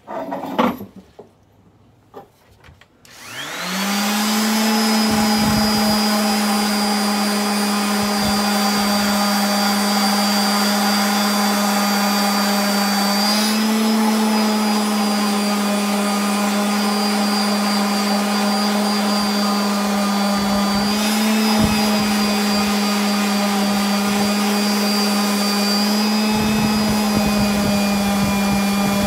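Electric palm sander switched on about three seconds in, spinning up with a quick rising whine, then running steadily with a strong hum as it sands. Its pitch shifts slightly now and then as it is pressed against the work. A few knocks come first.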